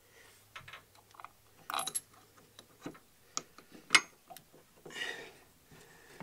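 Scattered small metal clicks and clinks as a bolt and a steel bracket are handled and fitted by hand. The sharpest click comes about four seconds in, with a brief rustle about a second later.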